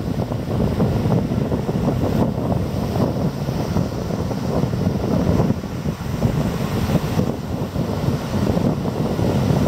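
Wind buffeting the microphone, a loud, rough, steady rumble that rises and falls a little in gusts.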